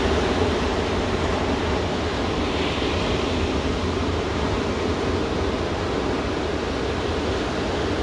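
Ocean surf: small waves breaking and washing up a sandy beach, a steady rushing noise with a deep low rumble and no distinct single crashes.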